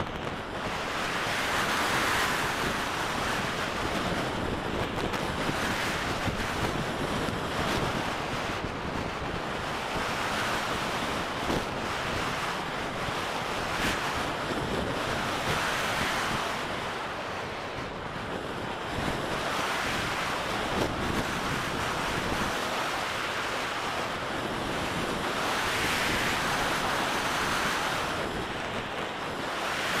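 Air rushing over a wing-mounted camera's microphone on an RC model glider in flight, swelling and easing every few seconds as the glider turns and changes speed.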